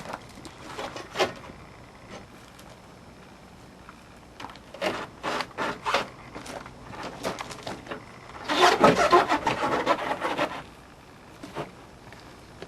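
Hand-handling noises: scattered knocks and short rubs, then a louder scraping rub lasting about two seconds, about two-thirds of the way in.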